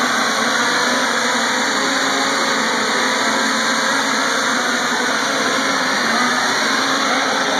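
Electric motors and propellers of the ETFD2 multicopter hovering: a steady whir whose pitch wavers slightly as it holds position.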